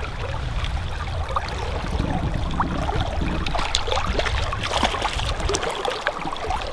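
Creek water flowing and lapping, over a steady low rumble, with a few short sharp sounds scattered through it.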